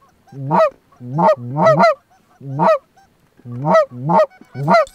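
Goose call blown hard in imitation of Canada geese to draw flying geese in: seven loud honks, each breaking sharply upward in pitch, in an uneven rhythm.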